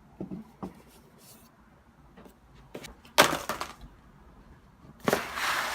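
Items and packaging being handled: faint clicks, a sharp crackling burst about three seconds in, and a longer rustle of about a second near the end.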